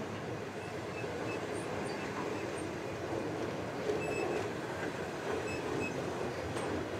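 Freight train's container flat wagons rolling past: a steady rumble of steel wheels on rail, with a few brief faint high squeaks from the wheels.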